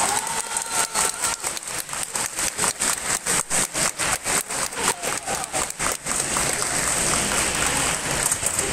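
Spectators clapping, distinct claps about five a second that stop about six seconds in, applauding a point just awarded in a kendo bout.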